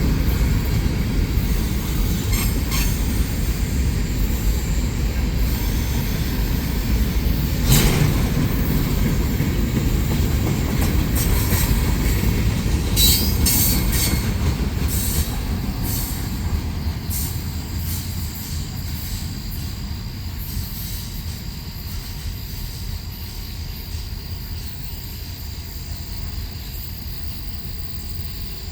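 Freight train cars rolling past with a steady low rumble, scattered clicks and a few brief high wheel squeals. The rumble fades through the second half as the train moves away.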